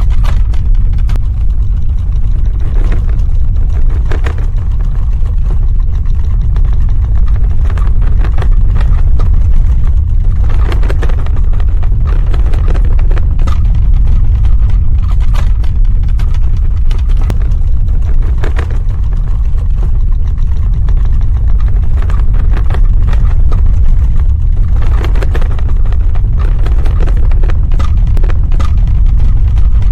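Earthquake rumble: a deep, loud, continuous ground rumble with scattered short cracks and knocks through it.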